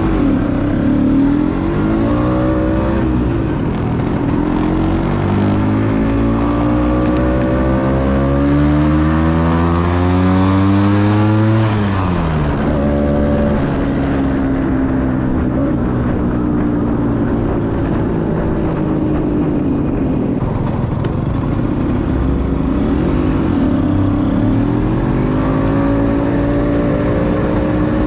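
Small scooter engine running under way, heard up close. Its pitch climbs steadily for several seconds as it accelerates, then drops sharply about twelve seconds in. It runs steadier after that, eases off, and climbs again near the end.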